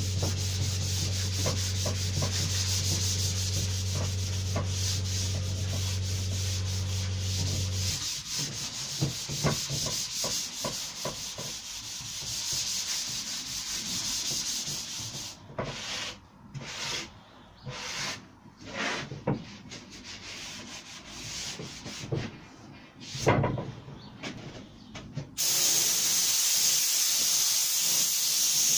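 Hand sanding with a sanding block across a primed plywood panel: steady scratchy rubbing that breaks into separate strokes in the second half. A steady low hum stops about a third of the way in. Near the end a gravity-feed paint spray gun starts, with a steady hiss of air and paint.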